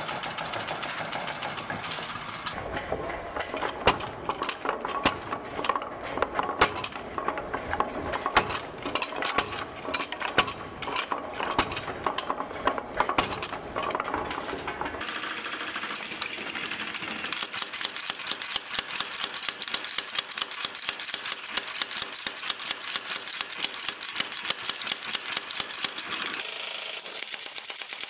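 Blacksmith's power hammer pounding red-hot steel during forge welding, in rapid repeated blows. The blows come irregularly at first, then as a faster, even run through the second half.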